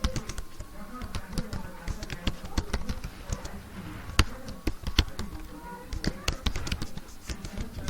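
Computer keyboard typed on at about 30 words a minute: a run of uneven key clicks, several a second, with one sharper strike about four seconds in.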